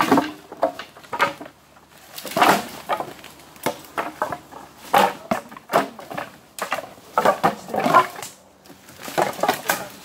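Cut branches and brush crunching and cracking as they are handled and trodden on, in irregular loud bursts about a second apart.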